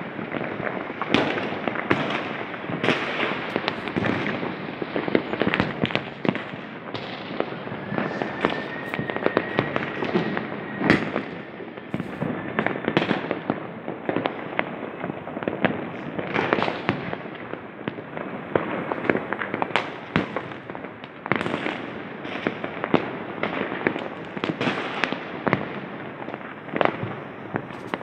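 Firecrackers and fireworks going off in a dense, continuous barrage of bangs and crackles, near and far, with a thin whistle running for a few seconds about eight seconds in.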